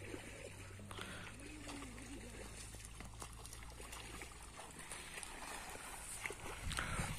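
Faint rural outdoor ambience with a low steady hum that stops about halfway through, a faint distant call about two seconds in, and scattered light clicks.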